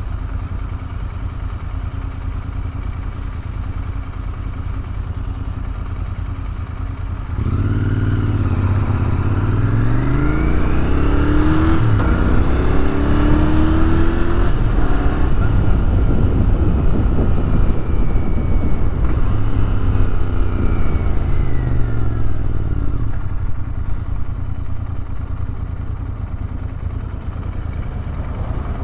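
Royal Enfield Continental GT 650 parallel-twin engine idling, then pulling away about seven seconds in. The revs climb and drop through three upshifts, hold at a steady cruise, then fall away as it slows, settling back to a low rumble for the last few seconds.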